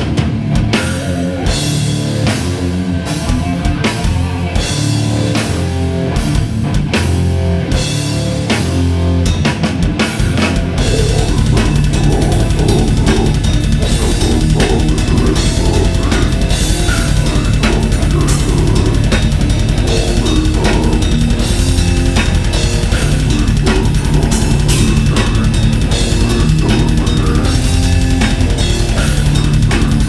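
Live death metal band playing: distorted guitars over a full drum kit. About eleven seconds in, the kick drum breaks into a rapid, unbroken run of strokes and the band gets louder.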